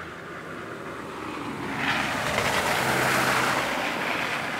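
Diesel freight locomotives, a GP38-2 and a GP9RM, running at a distance with a low steady engine drone. A broad rushing noise swells about two seconds in and fades near the end.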